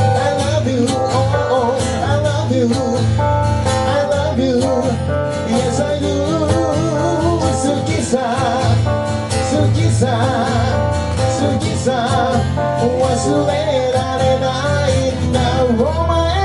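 Live pop music from a keyboard-and-acoustic-guitar duo: strummed acoustic guitar and electric keyboard over a steady bass line, with a wavering lead melody on top.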